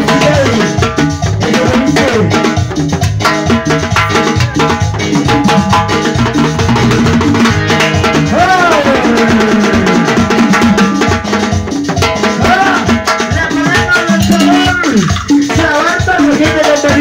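Latin dance band music played loudly, with a steady, busy percussion beat under pitched melody lines.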